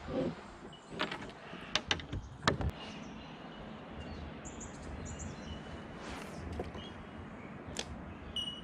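A handful of sharp clicks and knocks in the first three seconds, with one more near the end, from fishing gear being handled aboard a kayak. Birds chirp faintly in the background.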